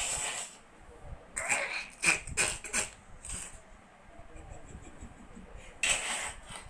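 A small pet sneezing in short, sharp bursts: one at the start, a quick run of several about two to three seconds in, and one more near the end.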